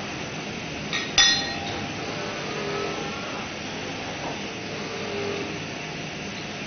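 A single sharp clink with a short ring about a second in, over a steady background hiss.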